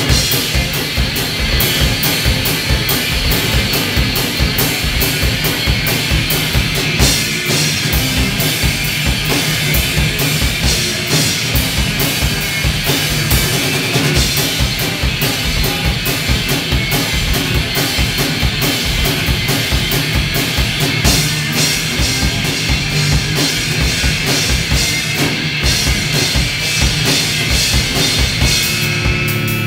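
Loud live rock from electric guitar and drum kit played together, with fast, driving drumming and no vocals.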